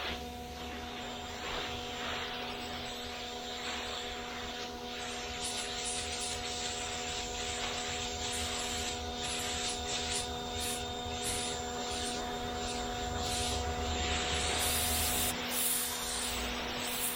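Gas pressure washer running steadily, its spray hissing across the concrete sidewalk in repeated sweeps that grow louder near the end.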